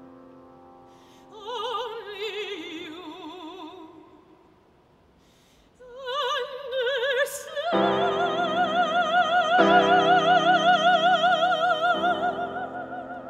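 Mezzo-soprano singing with a wide vibrato, accompanied by grand piano. A falling phrase dies away to a short near-silent pause, then a rising phrase swells to loud held notes as piano chords come in about eight seconds in.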